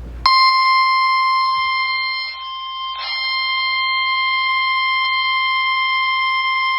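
Emergency Alert System warning tone: a single steady high tone, the 1050 Hz warning alarm tone used on NOAA Weather Radio. It starts at once, dips slightly in loudness about two seconds in, and holds steady after that.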